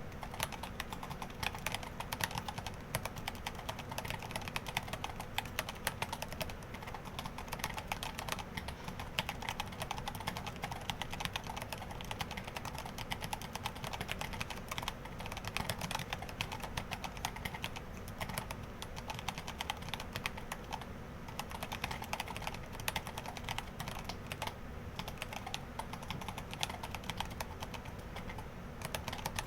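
Continuous fast typing on a Dactyl Minidox split mechanical keyboard with Hako Royal True key switches: a dense, steady stream of key clacks.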